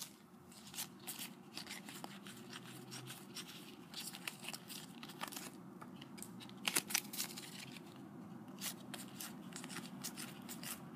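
Topps Match Attax trading cards handled and shuffled through by hand: faint, scattered clicks and slides of card on card, a few a little louder in the middle and near the end.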